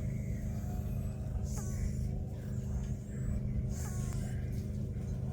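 Cat snoring: two breathy snores, about two and a half seconds apart, each with a short falling whistle. A steady low hum runs underneath.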